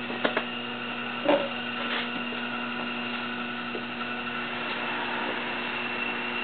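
Electric motor of an industrial sewing-machine table running with a steady hum while the vintage Union Special chainstitch machine is at rest, not stitching. A few short knocks in the first two seconds, the loudest about a second in.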